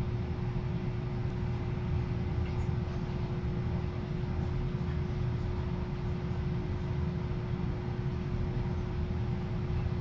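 AC Infinity inline duct booster fan running steadily: an even rushing of air with a constant hum. It is still running after the furnace's AC blower has shut off, because the duct (61.6°F) has not yet warmed to the temperature controller's 65°F set point.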